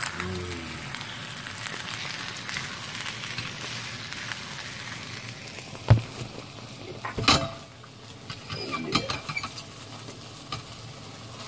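Eggs, bacon and diced potatoes sizzling in a frying pan while a silicone spatula stirs them. Two sharp knocks, about six and seven seconds in, the first the loudest sound, as the pan or spatula is knocked, after which the sizzle is fainter.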